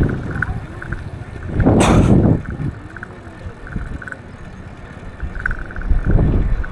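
Road traffic heard from a moving bicycle: a vehicle passes close by in a loud rush about two seconds in, with lower rumbling swells of wind on the microphone at the start and near the end, and faint irregular ticks throughout.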